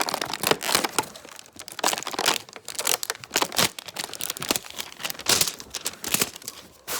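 Plastic packaging being crinkled and torn open by hand: a run of irregular crackles, crunches and snaps.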